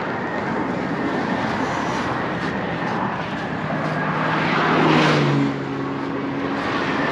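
Steady highway traffic noise from vehicles passing at speed. One vehicle goes by close about five seconds in: its tyre rush swells and fades along with a steady engine drone.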